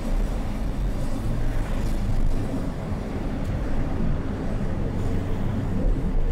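A car driving along a city street: a steady low rumble of engine and road noise.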